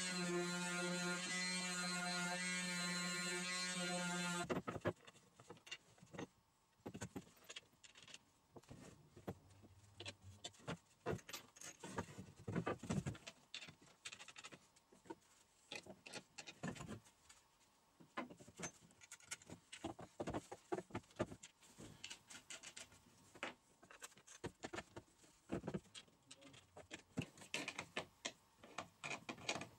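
Electric palm sander running steadily with a buzzing hum, stopping abruptly about four seconds in. Then irregular knocks and clicks as pine slats and small metal bolts and washers are handled and set down on a wooden workbench.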